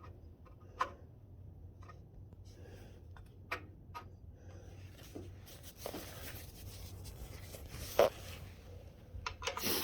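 Steel backhoe-thumb parts being handled: scattered light clicks and knocks, a scraping rub partway through, and a sharper knock about eight seconds in, over a low steady hum.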